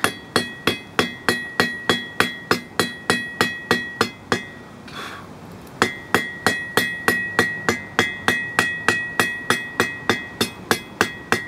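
Hand hammer striking a hot steel bar on an anvil in a steady rhythm of about three blows a second, each blow ringing brightly. The blows stop for about a second around halfway, then carry on. The smith is forging a square point into an octagonal taper, facet by facet.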